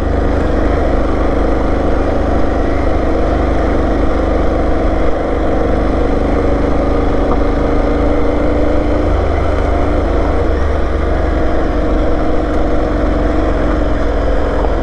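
Aprilia Tuareg 660's parallel-twin engine running steadily at low speed in second gear. Its note shifts slightly about nine seconds in.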